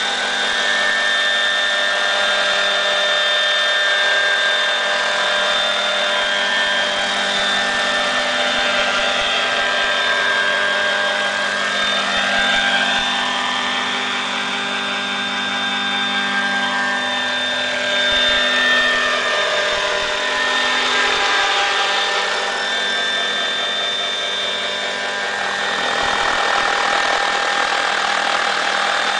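Vario Ecureuil AS350 electric scale model helicopter in low flight: the steady high whine of its electric drive and spinning rotors, its tone shifting slowly as the helicopter moves about and turns.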